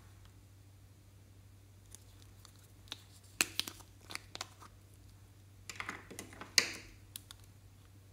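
A red lip-shaped plastic makeup case being pried open by hand: small plastic clicks and crackles, then a sharp snap about two-thirds through as the halves come apart.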